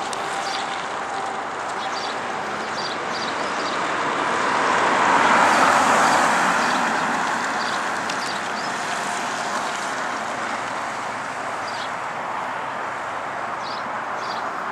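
A vehicle passing on a road, its noise swelling to a peak about five or six seconds in and then fading back into a steady background hiss.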